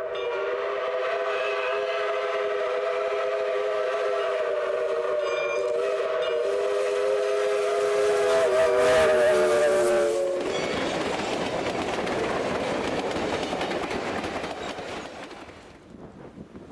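Steam locomotive's chime whistle blowing one long held chord, dropping slightly in pitch about ten seconds in as the engine passes. The noise of the passing locomotive and cars follows and fades out near the end.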